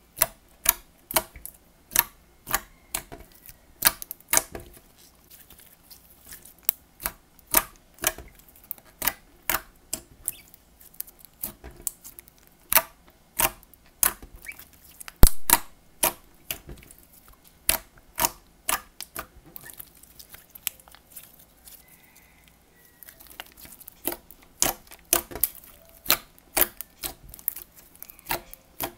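Thick, glossy slime being poked, pressed and stretched by fingers. It gives sharp popping clicks, a few a second at uneven spacing, as air pockets in it burst. The loudest pop comes about halfway through, and there is a quieter spell a little after that.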